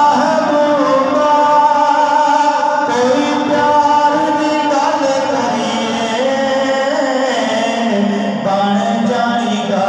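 A man singing a Punjabi naat into a microphone, drawing out long held notes that slide and step between pitches, amplified over a PA system.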